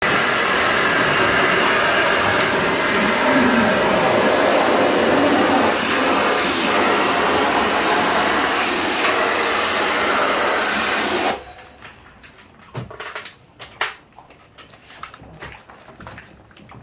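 Steady rushing hiss of a high-pressure cleaning spray jet on a wall-mounted air conditioner. It runs for about eleven seconds, then cuts off suddenly. Scattered light clicks and knocks follow.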